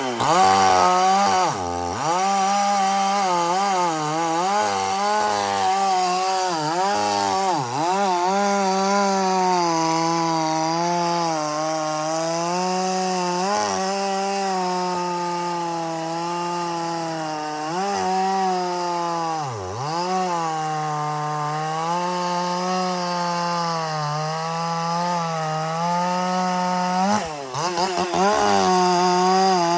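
Echo CS-4510 two-stroke chainsaw running at high revs and cutting wood. Its pitch sags briefly a few times as the chain loads up in the cut, then recovers.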